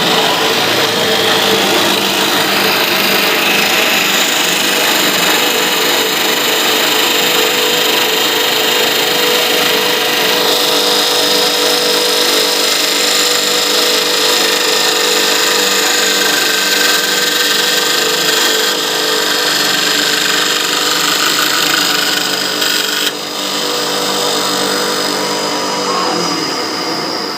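CNC wood lathe running, its two rotary cutter heads with four blades cutting a spinning wood blank: a steady, loud machine whine mixed with dense cutting noise, dropping off near the end.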